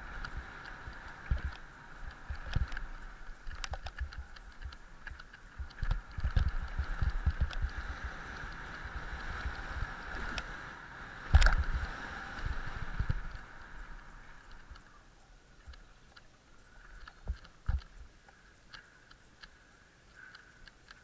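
Mountain bike descending a rough downhill dirt track, heard through a bike-mounted camera: steady rushing with constant rattling and knocking from the bike over the bumps. A heavy thump comes about eleven seconds in, as the bike lands off a wooden ramp. The ride grows quieter over the last several seconds, with a couple of thumps.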